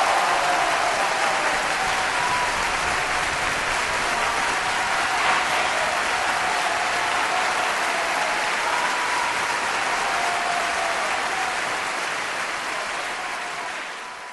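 Studio audience applauding, a dense steady clapping that fades out over the last couple of seconds.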